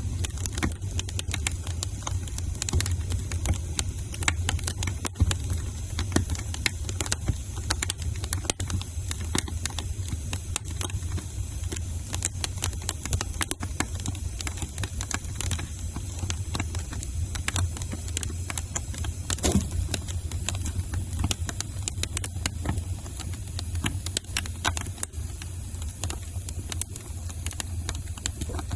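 Wood fire burning in a fireplace, crackling with frequent sharp pops over a steady low rumble.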